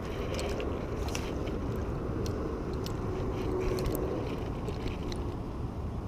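Small scattered clicks and scrapes of hands handling a spinning rod, line and a freshly caught crappie, over a steady low background rumble.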